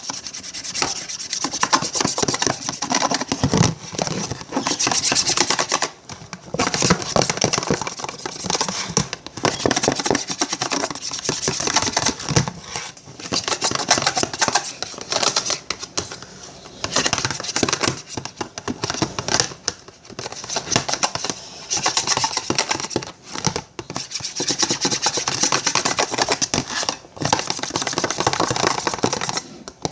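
Slime mixture being stirred hard in a bowl: a continuous rubbing, scraping sound of the utensil working through it against the bowl, stopping briefly a few times.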